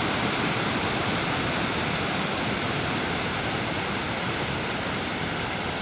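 Steady, dense rushing noise like a waterfall or static hiss, with no tone or rhythm, easing slightly in level.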